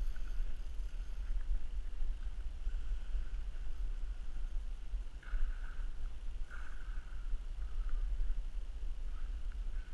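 Wind rumbling on the microphone, with the soft whir of a spinning reel as line is wound in, coming and going and strongest about five and six and a half seconds in.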